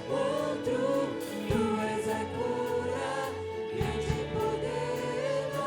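Live congregational worship music: a band and a group of voices singing a Portuguese praise song between lines of the lyrics.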